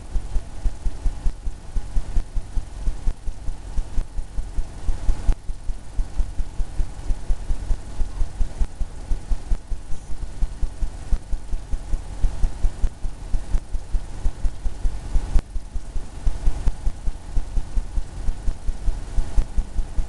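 Paintbrush dabbing oil paint onto a stretched canvas on an easel: a continuous run of low, dull thumps, about three or four a second.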